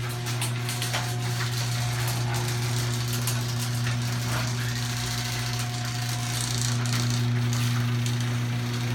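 LiftMaster chain-drive garage door opener raising the door: its motor gives a steady hum while the chain rattles along the rail.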